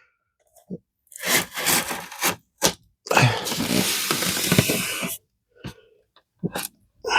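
Scraping and rubbing on the statue's cardboard packaging as it is handled: a few short scrapes, then one longer scrape lasting about two seconds.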